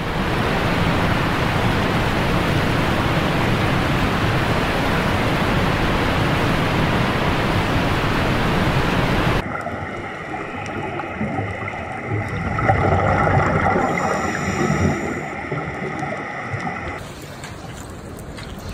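A steady rush of falling water from a waterfall. About halfway through it cuts abruptly to quieter underwater sound with steady humming tones, which swell for a couple of seconds, and near the end it drops to a soft hiss.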